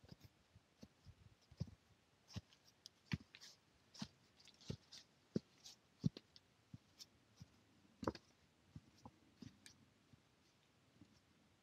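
Faint, irregular taps and clicks of trekking-pole tips and boots on a leaf-strewn stone-paved path, about one or two a second, with one louder knock about eight seconds in.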